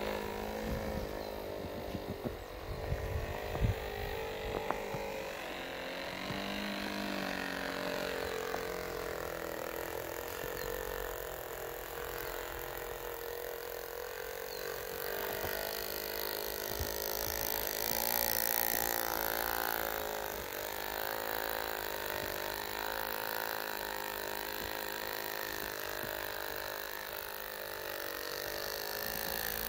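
Electric motors of a radio-controlled Lego snow blower whining as it pushes through deep snow, the whine wavering up and down in pitch.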